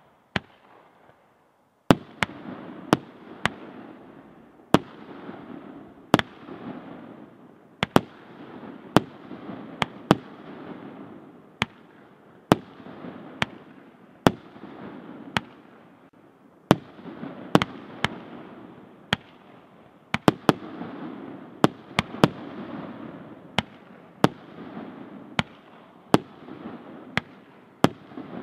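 A 65 mm (2.5-inch) peony firework battery firing: sharp bangs of shells launching and bursting, about one a second, over a steady rushing hiss. After a couple of single bangs the firing settles into its run about two seconds in.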